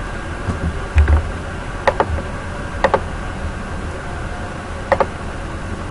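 A few sharp clicks at a computer, mostly in close pairs, a second or two apart, over steady microphone hiss and a low hum.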